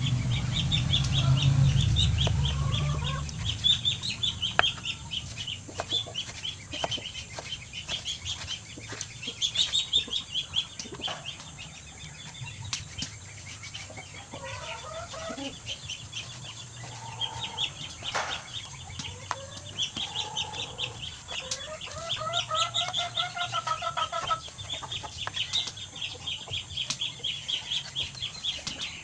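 Chickens clucking and calling again and again, mixed with light ticks of a knife against a plastic cutting board. A low rumble fills the first few seconds.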